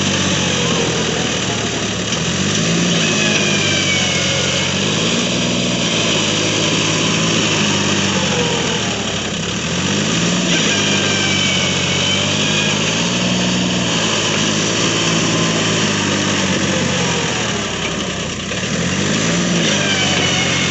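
Massey Ferguson 241 DI tractor's three-cylinder diesel engine working under heavy load, hauling a trailer heaped with soil through soft, churned ground. The engine's pitch rises and falls again and again every few seconds as it is revved up and eased off.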